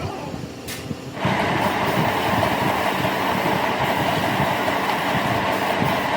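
Workshop machinery running with a steady, rough mechanical noise that gets louder about a second in and then holds steady.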